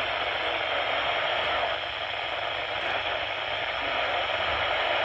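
Weather radio receiver hissing with steady, heavy static from weak reception, the broadcast voice drowned out.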